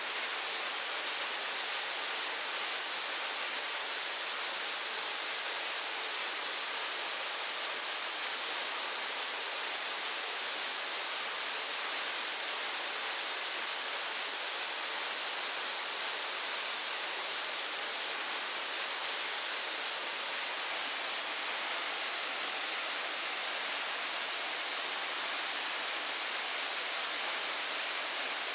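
Steady rushing water, a waterfall or fast stream: an even, unbroken hiss with no distinct events.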